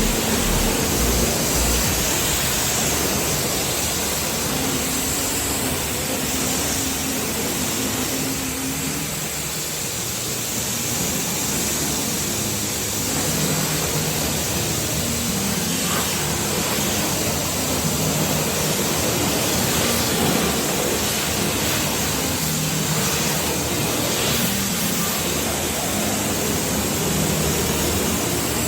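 Pressure washer spraying water on a motorcycle during its water wash: a steady hiss of spray that varies a little as the jet moves.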